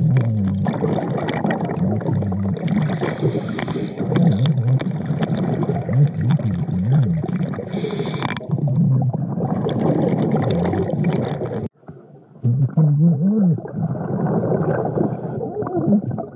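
Muffled underwater gurgling with a low, wavering moan. It cuts out for a moment about twelve seconds in, then comes back duller.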